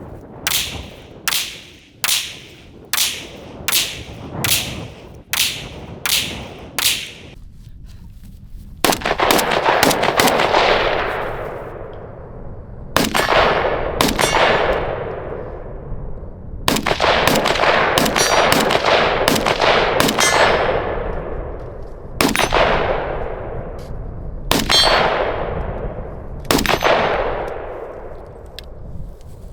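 Rifle gunfire: about a dozen evenly spaced shots in the first seven seconds, then more shots, some in quick pairs, each followed by a long ringing tail that dies away.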